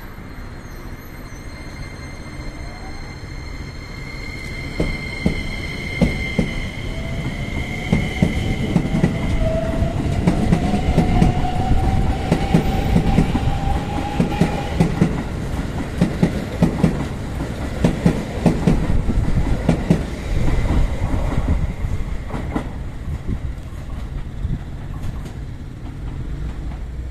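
Keisei 3100 series electric train pulling out and accelerating: its motor whine rises in pitch as it gathers speed, and the wheels clack repeatedly over rail joints as the cars pass. The sound then fades as the train moves off.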